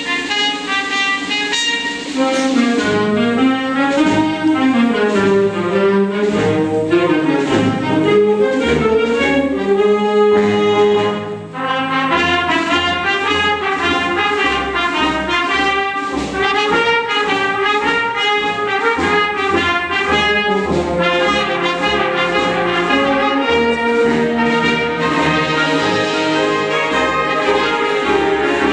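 School concert band of winds, brass and tuba playing a medley, with the brass prominent. The sound dips briefly about eleven seconds in before the full band comes back in.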